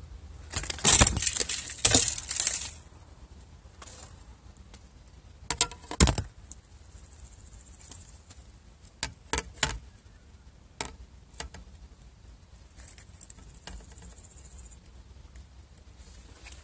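Handling noise as a caught bass is unhooked by hand: a dense rattle of clicks and rustling near the start, then scattered sharp clicks, clinks and knocks from the hook, lure and line.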